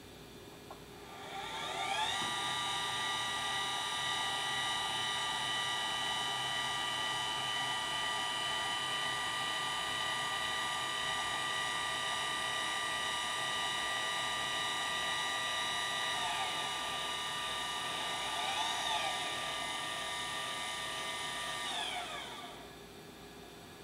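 Celestron CGX equatorial mount's drive motors whining through a slew: the pitch rises as the motors speed up about two seconds in, holds steady at full slew speed, wavers briefly a few seconds before the end, then falls away as the mount stops.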